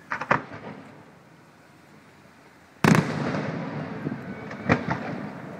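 Aerial firework shells bursting: two quick bangs at the start, a much louder boom about three seconds in with a long fading tail, then two more bangs near the end.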